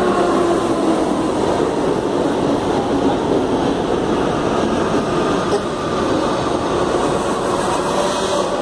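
CPTM electric commuter train running through the station: a steady, loud rumble of wheels on rail with a faint motor hum. A brighter hiss builds near the end.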